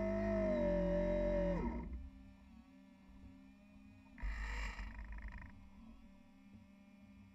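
A sustained, distorted guitar-like tone that bends in pitch and fades out about two seconds in, leaving a faint steady hum. A brief rush of noise comes about four seconds in.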